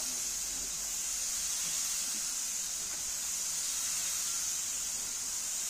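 Gravity-feed paint spray gun running continuously, a steady high hiss of compressed air atomising paint onto a car bonnet.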